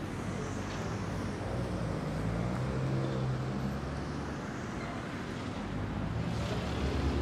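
City street traffic: cars driving past on the road, with one engine's hum growing louder a couple of seconds in and then easing off.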